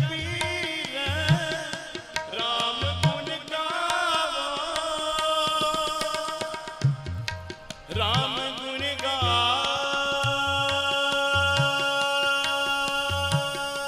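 Sikh kirtan: a man sings a Gurbani hymn over sustained harmonium chords, with tabla strokes keeping the rhythm. The voice breaks off about six seconds in, comes back briefly around eight seconds, and the last few seconds hold only the steady harmonium and tabla.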